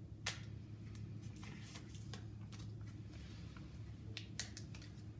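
Clear cellophane sleeve crinkling and crackling in the hands as a postcard is worked into it, with the sharpest crackle about a third of a second in and a few more later. A steady low hum sits underneath.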